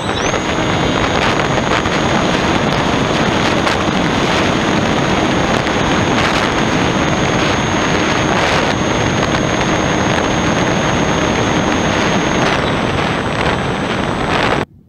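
Sky Hunter FPV plane's electric motor and propeller, recorded by a camera on the airframe: a high whine that rises to full power, holds steady, and drops off near the end, over loud wind rush on the microphone. The sound cuts off suddenly just before the end.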